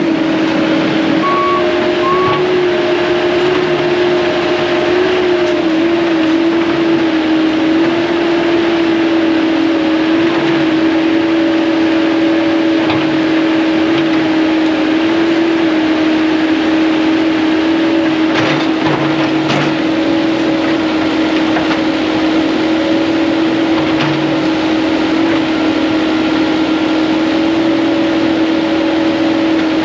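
CAT 308 mini excavator's diesel engine running steadily at working speed, with a steady whine over it, while the machine pushes trees over. A few sharp cracks come about two-thirds of the way through.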